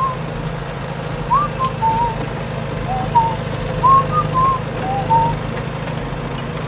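A series of short whistle-like chirps, each a brief slide up or down in pitch, over a steady low hum.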